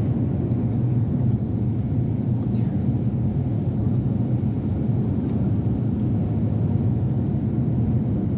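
Steady low rumble of a jet airliner's engines, the Airbus A330, on approach.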